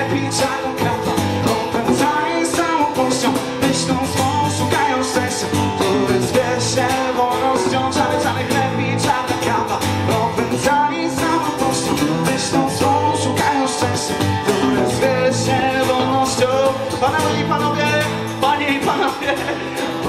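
Live rock-style music from an acoustic guitar strummed together with an electric guitar played through an amplifier, running steadily with no break.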